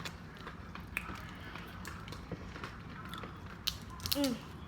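Close-up eating sounds: chewing and biting into seafood, with scattered small clicks and crackles. A short hummed voice sound comes about four seconds in.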